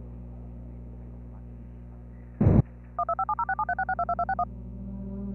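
A steady electrical hum runs throughout. About two and a half seconds in, a short loud burst of noise cuts across it. Then comes a quick run of about fifteen two-tone beeps, touch-tone telephone dialing tones, lasting about a second and a half.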